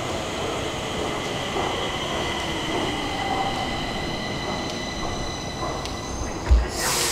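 Stockholm metro train pulling into the station: a rumbling run with high whining tones that step up in pitch, a loud thump about six and a half seconds in, then a short loud hiss near the end.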